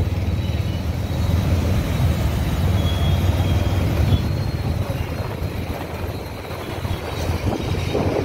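Steady low rumble of road-vehicle noise, dipping a little about six seconds in.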